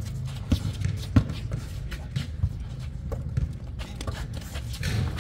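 Basketball bouncing and players' footsteps on an outdoor court: scattered, irregular thuds.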